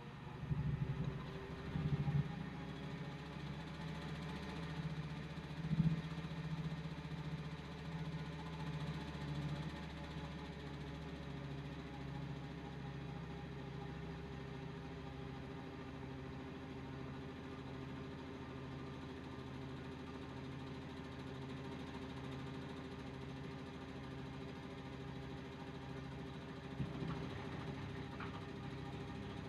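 Front-loading washing machine running its wash cycle: the drum motor hums steadily, with a few thumps in the first six seconds and again near the end.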